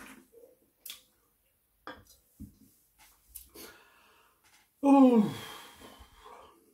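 A man's loud burp about five seconds in, dropping in pitch as it trails off, brought up by gulps of fizzy 7 Up. Before it come a few soft clicks.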